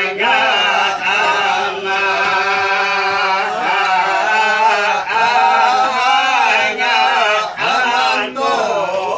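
A group of men's voices chanting together in long, wavering sung phrases, an Islamic devotional chant (shalawat), with short breaks between phrases for breath.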